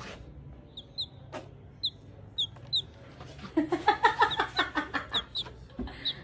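Baby chick peeping: short, high, slightly falling peeps about twice a second. In the middle, for about two seconds, a louder run of rapid, lower clucking calls.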